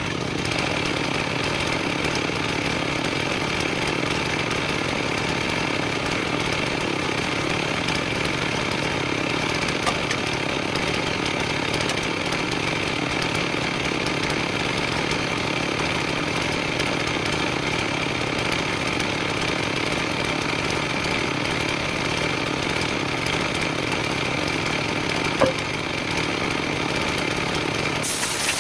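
Chainsaw mounted on a homemade chainsaw mill, running steadily under load as it rips a log lengthwise into lumber. The pitch and level hold even throughout, turning hissier just before the end.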